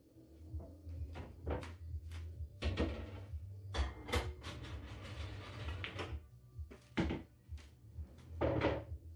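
Pool cue striking the cue ball about four seconds in, the ball then running on the cloth and knocking off a cushion, among several other sharp knocks and thuds around the table.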